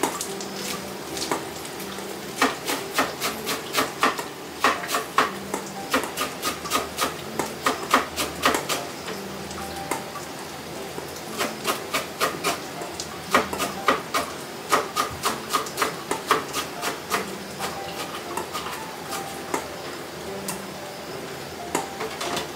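Kitchen knife chopping on a wooden cutting board: runs of quick, sharp knocks, a few strokes a second, broken by short pauses.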